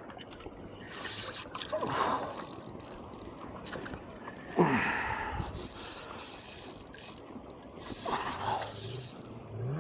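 Spinning reel ratcheting in three spells under the pull of a hooked fish, with a short falling sound about halfway through.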